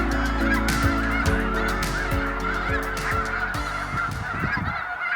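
Large flock of snow geese calling together, a dense unbroken chorus of many overlapping calls.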